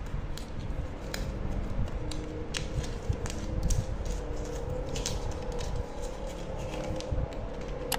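Thin clear plastic card sleeve and a paper receipt handled and pulled open by fingers: crinkling plastic with scattered sharp crackles and steady low handling noise.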